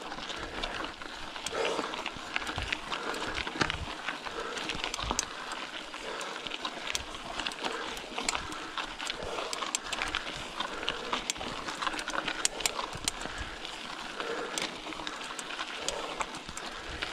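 A bicycle being ridden over rough ground: irregular clicks and rattles over a steady rushing noise.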